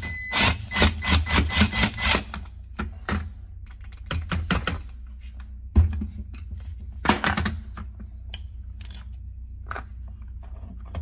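Cordless impact wrench hammering in rapid blows for about two seconds, undoing the nut on the drive sprocket of an ATV rear gearbox output shaft. Then scattered metal clinks and knocks, one sharp knock about six seconds in, as the loosened nut and sprocket are handled.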